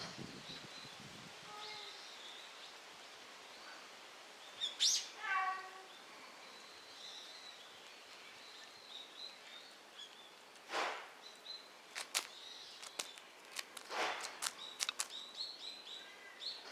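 Outdoor ambience with faint high chirping calls throughout and one louder call about five seconds in. Short crackling rustles follow in the second half.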